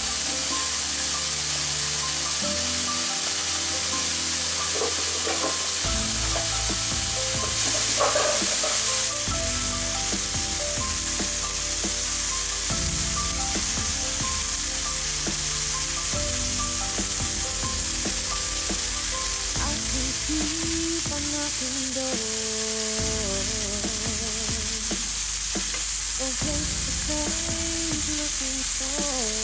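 Bacon strips sizzling steadily in a hot nonstick frying pan, briefly louder about eight seconds in.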